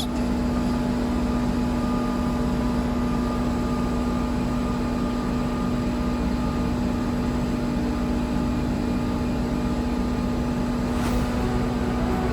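Ladder fire truck's engine and hydraulic pump running steadily as the aerial ladder is extended, a constant mechanical hum.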